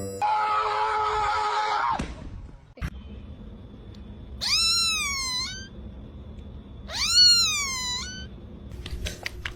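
A domestic cat meowing: two long, drawn-out meows a couple of seconds apart, each rising, falling and turning up at the end. They follow a loud wavering cry that ends about two seconds in.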